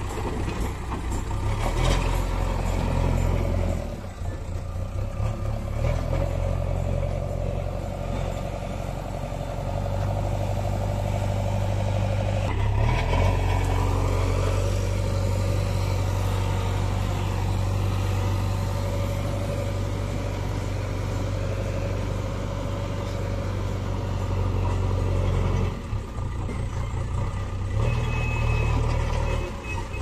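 JCB 3DX backhoe loader's diesel engine running under load, its note rising and falling as the machine lifts, drives and tips its front bucket. Near the end a reversing alarm beeps in short repeated beeps.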